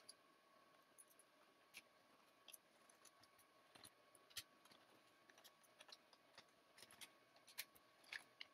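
Faint, irregular clicks and ticks of a precision screwdriver working the captive screws loose on a Dell Latitude E5470's bottom cover.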